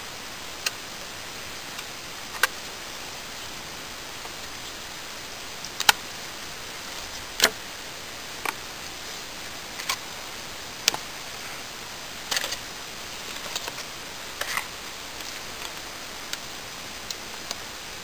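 Hands winding vinyl electrical tape around a wooden shaft: scattered short clicks and small crackles from the tape and handling, a dozen or so spread irregularly, over a steady hiss.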